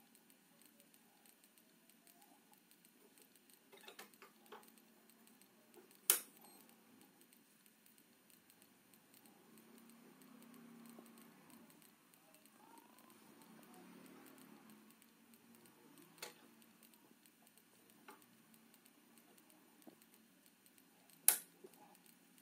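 Scattered sharp plastic clicks, a few seconds apart, of an Ethernet (RJ45) cable plug being pushed into and pulled from the ports of a TP-Link network switch. The loudest clicks come about six seconds in and near the end.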